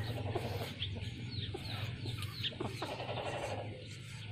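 Chickens clucking, mixed with many short, high, falling chirps, over a steady low hum.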